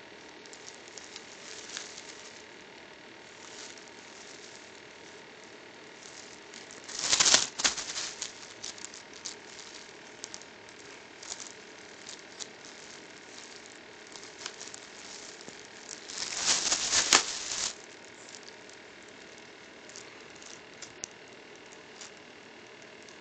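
Plastic wrap crinkling and crackling in small bits as a cat bites and chews at a plastic-wrapped head of lettuce. Two louder bursts of plastic rustling stand out, about seven seconds in and again about sixteen seconds in, the second one longer.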